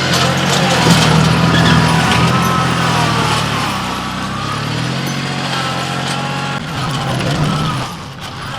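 Kioti CK2610 compact tractor's three-cylinder diesel engine running while working the loader bucket. Its note shifts in pitch a few times and drops lower about two-thirds of the way through.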